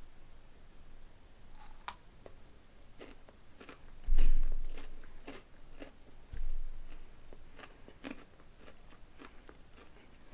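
Close-up chewing and crunching of a Kit Kat chocolate wafer bar, a string of short crisp crunches. Two dull low thumps, about four seconds and six and a half seconds in, are the loudest sounds.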